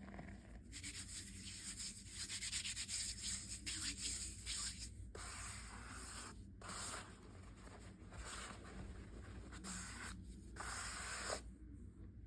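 Dry powder being crushed and rubbed: a crackly, gritty hiss that comes in several spells with a few short breaks and stops shortly before the end.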